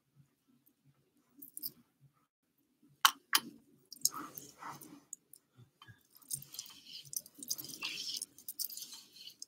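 Handling noise from a flat iron being worked through hair: two sharp clicks a little after three seconds in, then scratchy rustling that comes and goes.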